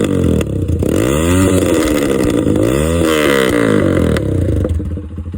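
Motorcycle engine with a loud aftermarket exhaust being revved: the note rises and falls twice, then drops back to a steady idle near the end.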